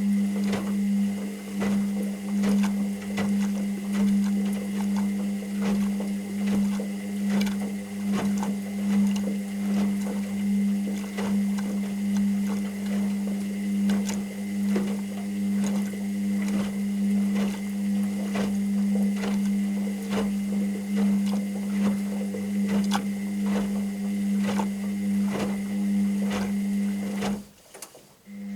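Washing machine running: a steady motor hum with irregular small clicks and knocks throughout. Near the end the machine cuts out for about a second.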